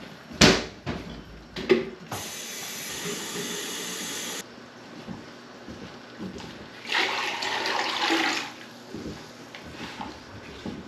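Kitchen sink tap running over drained cooked pasta to rinse it, in two spells: a steady stream that starts and stops sharply, then a second, rougher rush of water a few seconds later. Two sharp knocks come just before the first spell.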